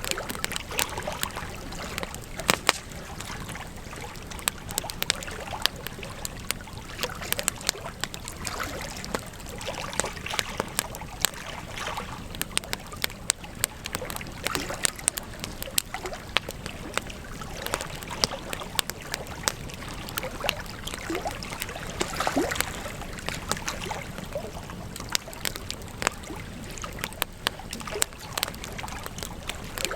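Campfire crackling: irregular sharp pops and snaps of burning wood over a steady hiss.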